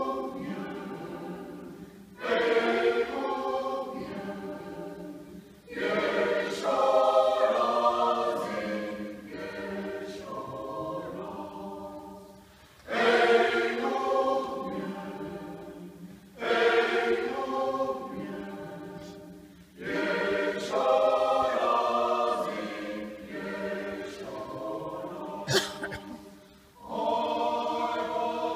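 Mixed choir of women and men singing unaccompanied, in phrases that each start suddenly and break off briefly before the next. A short sharp noise cuts through near the end.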